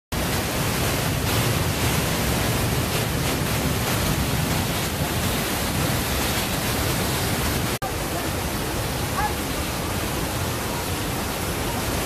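Düden Waterfall's water crashing into its pool and rapids, a dense, even rush of white-water noise. It drops out for an instant just before eight seconds in, then carries on slightly quieter.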